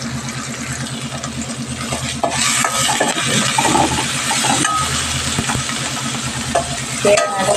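Chopped onion and tomato sizzling in oil in a stainless steel kadai while a steel spoon stirs and scrapes the pan, with clicks of the spoon on the metal; the sizzle grows louder from about two to five seconds in. A steady low mechanical hum with a rapid pulse runs underneath.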